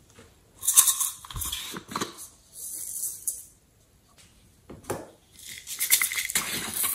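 Hard plastic pineapple-shaped containers being handled and pulled open: several bursts of rattling, crinkling plastic handling noise, with a short sharp click about five seconds in.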